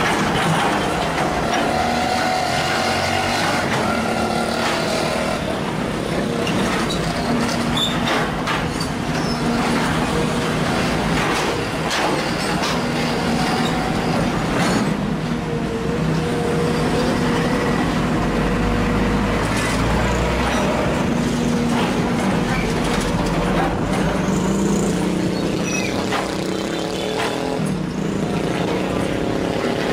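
Sumitomo SH210 hydraulic excavator working: its diesel engine runs steadily under load while the bucket digs and scrapes through soil, with scattered knocks and clunks.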